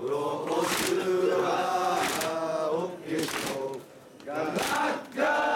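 A crowd at a danjiri cart chanting together in loud, drawn-out phrases, broken by short pauses a little after 3 seconds and around 4 seconds.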